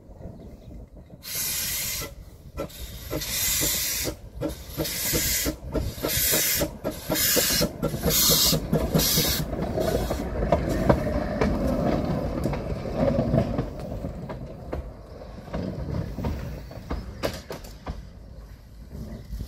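Baldwin 590, a narrow-gauge Baldwin 4-6-0 tank steam locomotive, working along at low speed: heavy exhaust chuffs of steam about one a second, coming a little quicker, with steam hissing. About halfway the chuffs stop and the wheels rumble and click over the rails and points, fading as it runs away.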